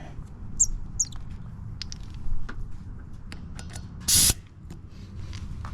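Short burst of compressed air hissing out about four seconds in, as an air line's chuck is fitted to a tire valve, amid scattered clicks and rattles of the hose and its fittings being handled.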